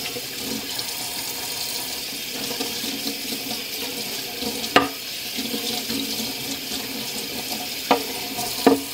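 Kitchen faucet running steadily, its stream splashing over a small cast-iron skillet being rinsed in a stainless steel sink. A few sharp knocks come about halfway through and near the end.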